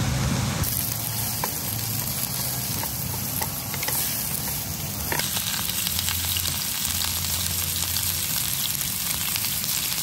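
Food frying: a steady sizzle with a few light clicks.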